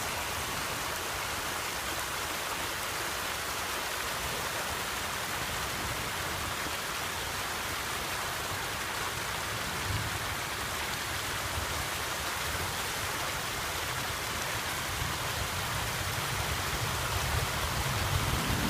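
Steady rain falling, an even hiss of drops, with a low rumble building near the end.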